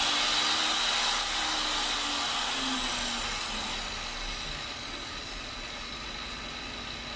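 Angle grinder running through a variable speed controller, its motor whine gliding up to a peak about a second in and then falling steadily over the next few seconds as the knob turns the speed down, getting quieter as it slows.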